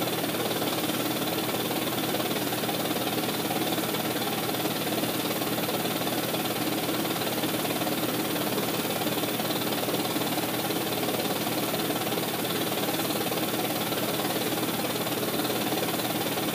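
A steady mechanical whirring hum that does not change.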